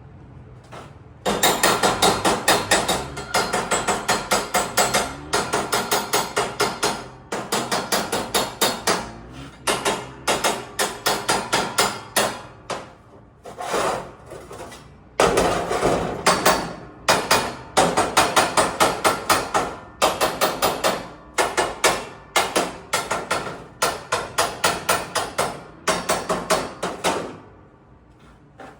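Rapid hammer strikes on metal, about eight to ten blows a second, in repeated bursts of one to two seconds with short pauses between them.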